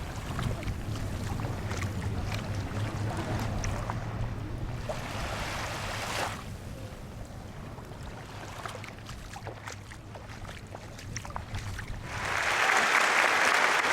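Wind and water noise over a steady low hum, like being out on a boat. About twelve seconds in the hum drops away and a louder, dense, even noise like applause takes over.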